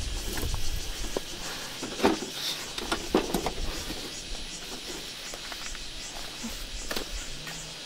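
Knocks and clicks of a white folding table being set up and pressed into place: a few sharp taps about two and three seconds in and another near the end, with a low rumble at the start.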